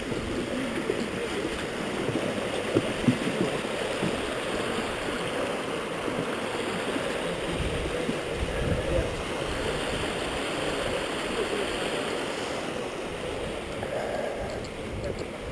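Steady rush of running water from a stream, with a couple of brief knocks about three seconds in.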